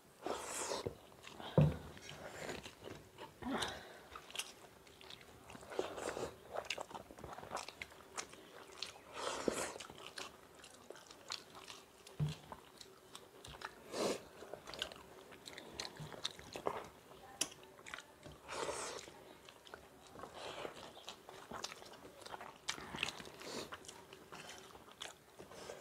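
Close-up chewing and biting of people eating rice and egg bhurji by hand, irregular wet smacks and crunches. A faint steady hum runs underneath.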